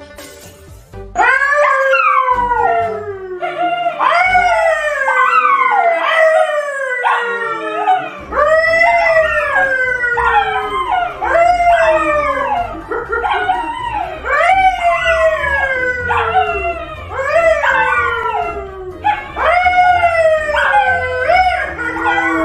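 A man and two dogs, a yellow Labrador and a brown poodle, howling together, starting about a second in. It is a run of long howls, each falling in pitch, with several voices overlapping.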